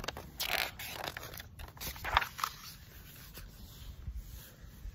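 Page of a hardcover picture book being turned and smoothed flat: paper rustling, with two louder swishes about half a second and two seconds in.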